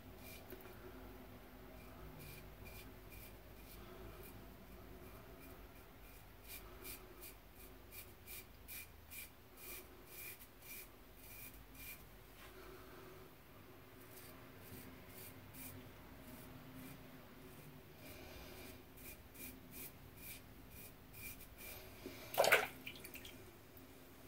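Muhle R41 double-edge safety razor with an Astra SP blade scraping through beard stubble under shaving lather, a first pass with the grain: runs of short, quick strokes. A short, louder noise near the end.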